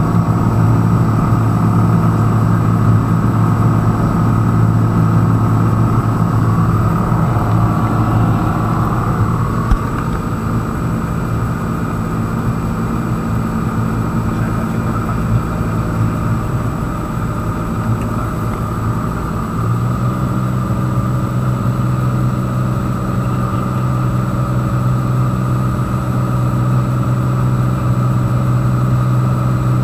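Engine and propeller drone of a Piper PA-46 single-engine aircraft in flight, heard inside the cockpit: a loud, steady hum. About two-thirds of the way in the drone steps up slightly in pitch and gets louder, a change in engine or propeller setting.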